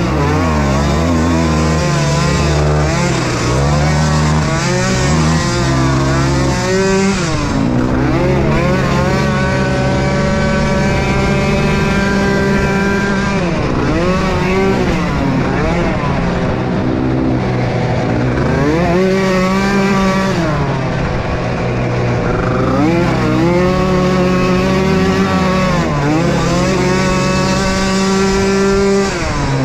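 Several small youth ATV engines racing on a motocross track. Their pitch keeps rising and falling as they rev up, ease off and rev again, several at once.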